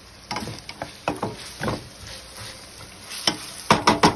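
Wooden spatula scraping and knocking against a stainless-steel skillet while stirring ground pork and green beans. It makes a run of irregular clacks and scrapes, with the loudest bunch of knocks near the end.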